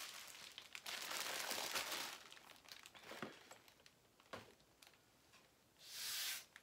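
Plastic poly mailer bags crinkling as they are handled and set down on a cutting mat, with a few light taps in the middle and another short crinkle near the end.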